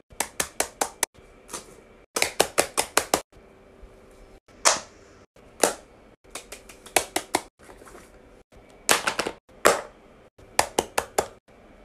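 Silicone pop-it fidget toys being popped: quick runs of five or six sharp clicks, in several bursts with short pauses between, plus a few single louder pops.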